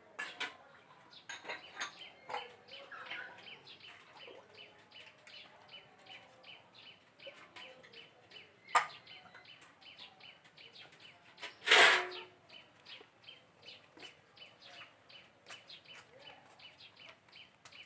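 Garden ambience: a steady rhythm of faint, high chirps, about three or four a second, with a sharp click about nine seconds in and a louder short noise about twelve seconds in.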